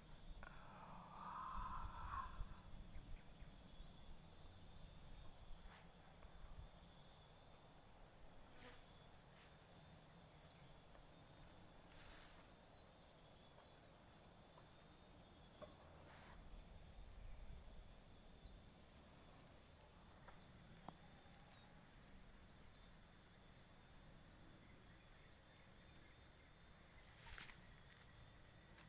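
Faint, steady high-pitched chirring of insects, with a few soft clicks and rustles.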